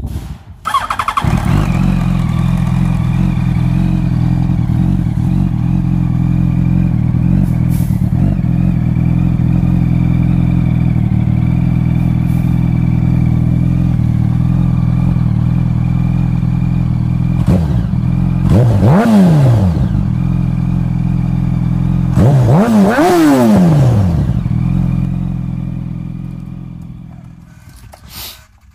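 Yamaha R1 inline-four engine starting about a second in and idling steadily through its twin underseat mufflers, whose baffles and packing are being reworked. It is revved twice, briefly, a few seconds apart, then the sound fades out near the end.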